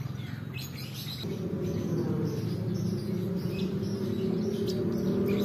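Small birds chirping, and from about a second in a motor vehicle engine hum that grows steadily louder.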